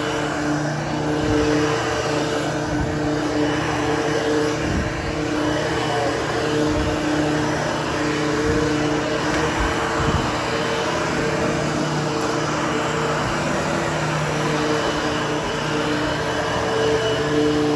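Vacuum cleaner running steadily as it power-grooms the pile of a freshly cleaned, nearly dry carpet: a constant rush of air over a motor hum that wavers a little in strength.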